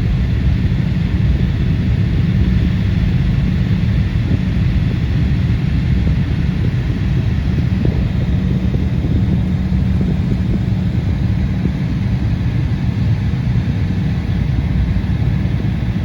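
Cabin noise inside an Embraer 175 regional jet: a steady, loud low rumble of its GE CF34 turbofan engines and airflow, heard from a seat in the coach cabin.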